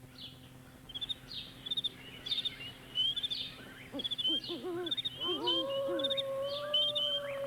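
Recorded night-forest sound effect. Short high chirps repeat about once a second from about a second in. About four seconds in, low wavering hoots join them, and then one long held call that sags in pitch near the end.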